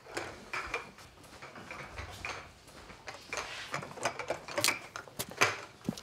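Irregular clinks, knocks and scrapes of kitchen things being handled: a plastic crate and glass jars. The sharpest knock comes about five and a half seconds in.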